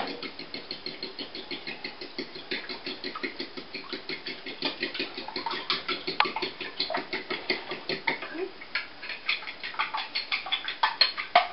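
Fork beating eggs and vanilla in a glazed ceramic bowl, the tines clicking against the bowl in a rapid, even rhythm of several strokes a second.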